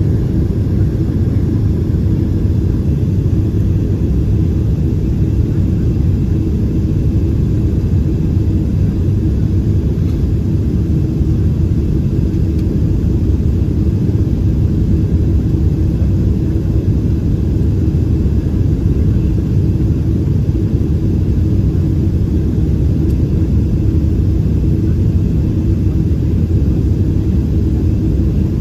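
Steady cabin noise inside a Boeing 767-400 on approach with its flaps extended: a deep, even rumble of engines and rushing air, with a faint steady hum under it.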